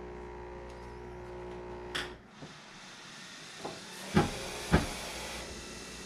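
Nespresso Vertuo Plus coffee machine running at the start of an espresso brew: a steady hum until a click about two seconds in, then a hiss. Two short knocks come a little after four seconds in.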